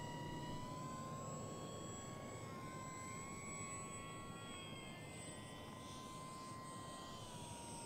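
Electric brushless motor and propeller of an FMS PA-18 Super Cub RC model plane whining in flight: a faint, steady tone that rises slightly about half a second in and drops again near the end as the throttle or distance changes.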